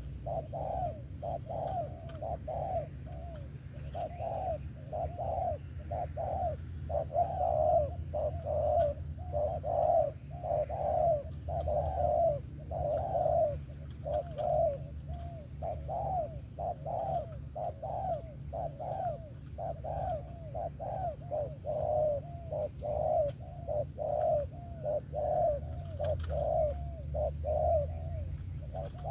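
Spotted dove cooing, a steady unbroken run of low coo notes repeated over and over.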